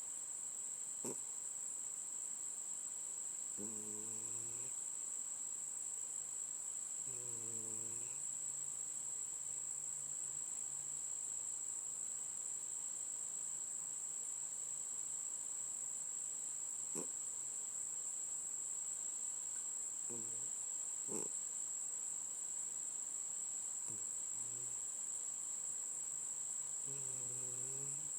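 A cat snoring faintly: several soft, low, pitched snores, each about a second long, a few seconds apart at first and later with a long gap in the middle. A steady high-pitched whine is louder than the snores throughout.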